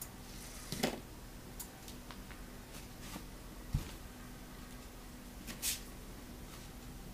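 A few soft rustles and clicks from a tiny electric micro rock crawler, the Yokomo nanoQLO, working its way off a mesh bag of short plastic straw pieces, with one sharp low knock a little past the middle as it comes down onto the wooden floor.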